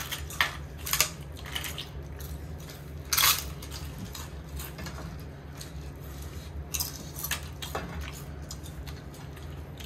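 Tableware clinking now and then as people eat, with scattered sharp clicks of utensils on plates and bowls, the loudest about three seconds in. A steady low hum runs underneath.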